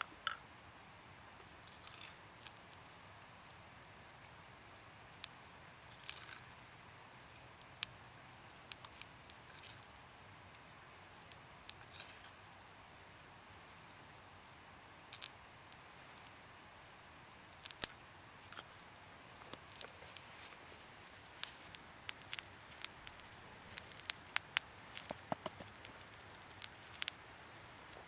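Scattered sharp crackles and pops from the campfire and the pan of melted butter sitting on it. The pops come more often from about two-thirds of the way in.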